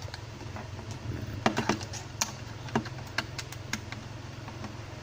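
Small plastic clicks and taps from handling a digital multimeter's case and battery cover, a few scattered ones and then a short cluster in the middle, over a steady low hum.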